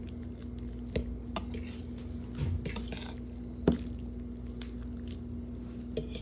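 Utensils clinking and knocking against a bowl or pot while noodle soup is stirred, a handful of separate knocks with the loudest nearly four seconds in, over a steady low hum.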